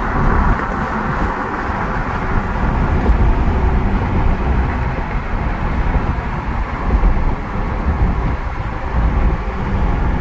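A car driving at speed, its steady road and wind noise carrying a deep rumble.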